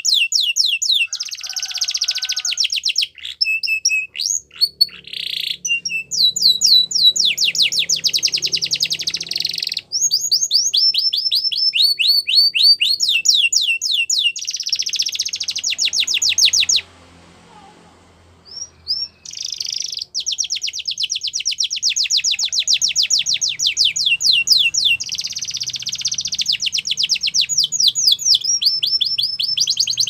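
Yellow domestic canary singing: long trills of rapidly repeated high notes strung together, with a pause of about two seconds just past the middle.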